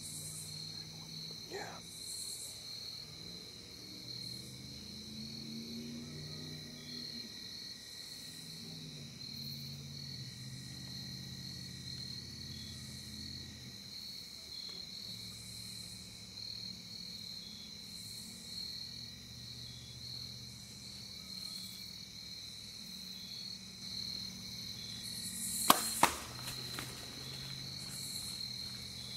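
Steady chorus of crickets and other insects, with a high buzz that comes back every couple of seconds. Near the end come two sharp clicks a fraction of a second apart, the loudest sounds here.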